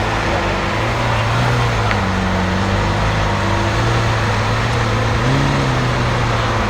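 BMW M5 F90's twin-turbo 4.4-litre V8 with a Supersprint exhaust, idling steadily. It gives a few slight rises in pitch, the clearest a short blip about five seconds in.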